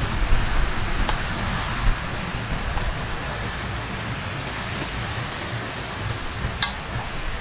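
Steady outdoor background hiss with an uneven low wind rumble on the microphone, broken by a faint click about a second in and a sharper click near the end.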